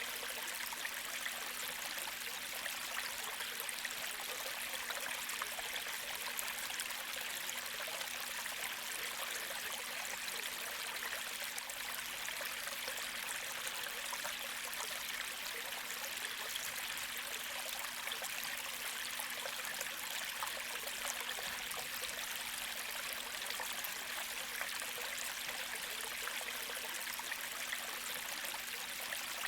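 A gentle creek flowing, a steady stream of water trickling over its bed.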